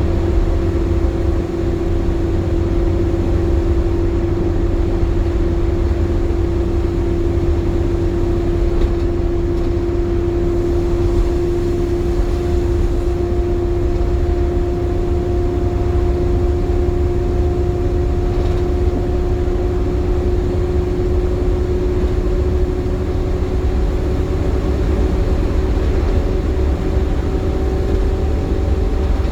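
Optare Solo single-deck bus heard from on board while driving: a heavy low engine and road rumble, under a strong steady whine that slowly rises in pitch. The whine is the vacuum-cleaner-like 'hoovering' of the bus's cooling fan working hard in warm conditions.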